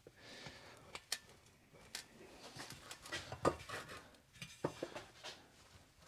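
Faint, scattered metallic clicks and light scraping as steel washers and axle parts are handled and seated on the drive roller of a Swardman Electra 2.0 reel mower, while its bevel-gear differential is shimmed. The clicks come singly, a second or so apart.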